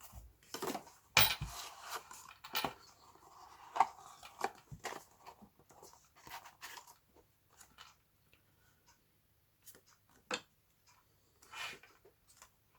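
Clicks, taps and light rustling of a small Victorinox Alox Classic pocket knife being picked up and handled, with one sharper knock about four seconds in and fewer sounds toward the end.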